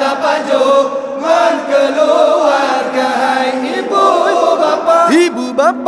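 A group of young men chanting a syair sahur, the verse sung to wake people for the pre-dawn Ramadan meal, in unison, drawing out long wavering notes. Near the end the voices slide sharply up in pitch.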